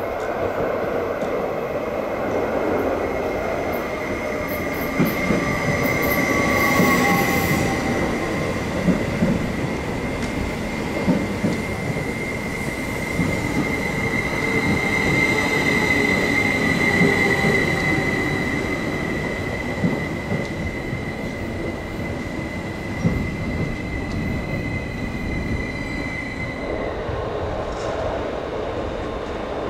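Electric passenger train running past the platform, with a continuous rumble and an occasional clack over the rail joints. Its wheels give a steady high squeal that starts a few seconds in and cuts off near the end.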